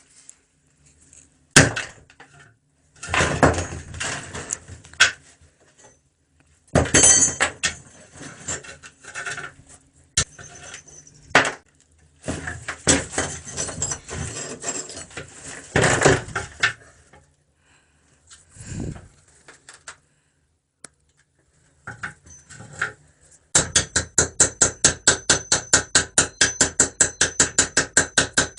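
Scattered knocks and clatter of small hard objects being handled. Near the end come rapid, even back-and-forth scraping strokes, about six a second, as a piece is rubbed or filed.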